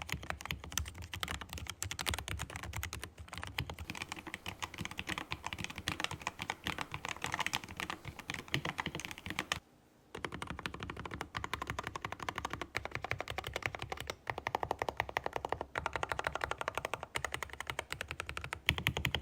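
Fast typing on a mechanical keyboard fitted with GEONWORKS Raptor HE magnetic (Hall-effect) switches: a dense, continuous clatter of keystrokes, with one brief pause about halfway through.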